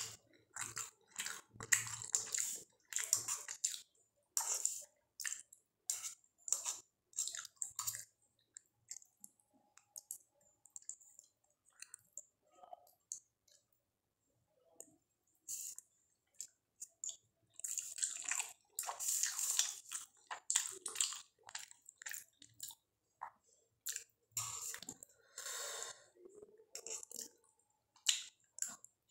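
Close-up eating sounds of soupy masala Maggi instant noodles: wet chewing and slurping of noodle strands off a fork. The sounds come in short, irregular bursts, sparser in the middle and busier toward the end.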